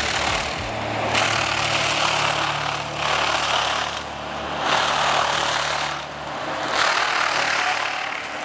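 Excavator-mounted disc mulcher (AFE RDM52EX) grinding into a standing tree: about four surges of dense chipping noise with short dips between them, as the disc bites into the wood. Beneath it runs the steady hum of the excavator's diesel engine and hydraulics.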